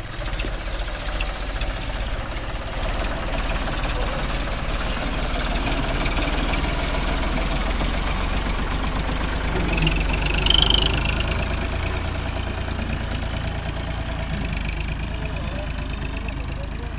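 An engine running steadily, growing a little louder toward the middle, with a brief high squeal about ten and a half seconds in.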